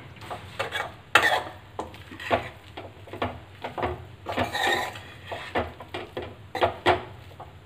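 A metal spoon scraping and clinking against a metal kadai as cut parathas in a sauce are stirred and tossed: irregular scrapes and knocks, the loudest about a second in.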